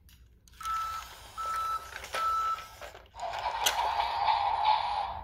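BRIO Smart Tech battery toy engine giving three short, evenly pitched electronic beeps, followed about a second later by a steady whirring with one click. The engine is stuck and will not move, held back by its brake wheel.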